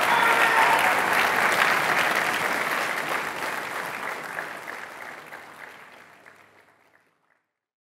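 Audience applauding, a dense patter of many hands clapping, which dies away over the last few seconds.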